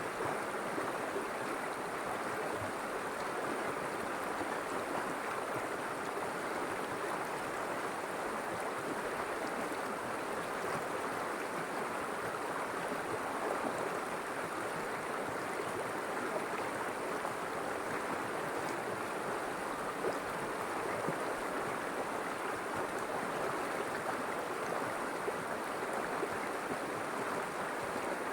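River water flowing and rushing steadily over stones, a continuous even babble.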